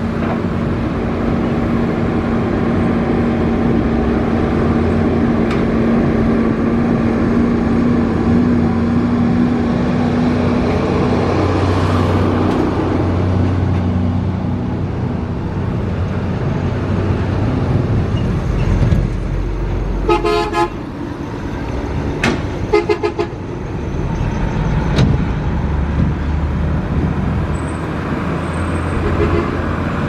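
Komatsu PC200 hydraulic excavator's diesel engine running steadily as it works, its hum shifting pitch about a third of the way in. About two-thirds through, a vehicle horn sounds a series of quick toots, and toots again a couple of seconds later.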